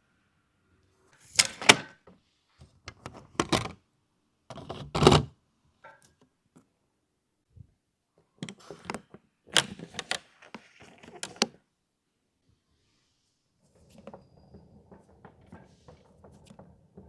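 A hard-shell aluminium suitcase being handled: sharp clicks and knocks in clusters a second or two apart, then soft rustling for the last few seconds.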